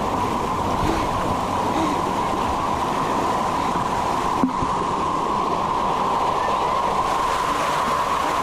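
Steady rush of running and splashing water at a water park, with a single knock about four and a half seconds in.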